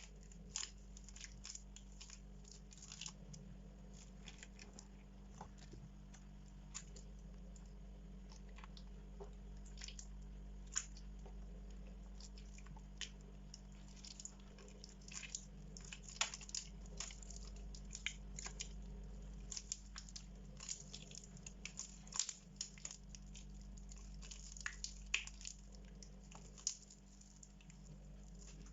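Water-soaked bar soap being squeezed by hand: soft, wet squishing with many short, irregular crackles.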